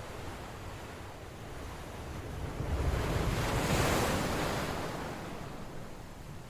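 Swimming-pool water splashing and sloshing, with wind buffeting the microphone. The rushing noise swells up about halfway through and dies away again.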